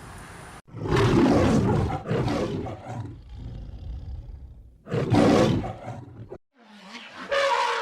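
A big cat roaring: three loud, rough calls, the first two close together and the third about two seconds later, followed near the end by a shorter call with a clearer pitch.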